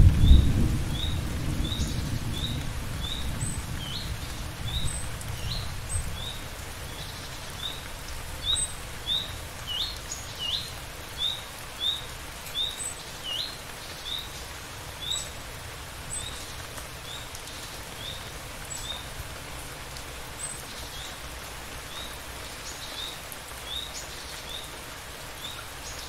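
Thunder rumbling at the start and dying away over the first few seconds, then steady rain. Through it a small bird chirps over and over, a short high note a little more than once a second, now and then with a higher or dipping note.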